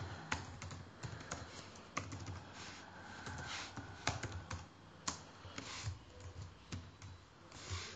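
Typing on a computer keyboard: irregular keystroke clicks in small runs with short pauses between them.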